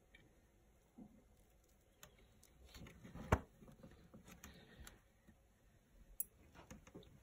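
Faint handling noises from long metal tweezers working a paper towel in a plastic tub: soft rustling and light clicks, with one sharp knock a little over three seconds in and another click about six seconds in.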